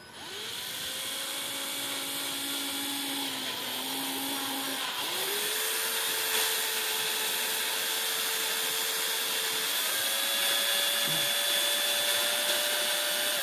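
Power drill running as it drills a pilot hole into a broken-off water pump bolt. The motor whine spins up at the start, changes speed twice along the way, and cuts off at the end.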